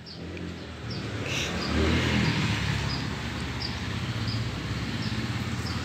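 Low engine hum of a motor vehicle that swells about two seconds in and then eases off, with small high chirps repeating about twice a second.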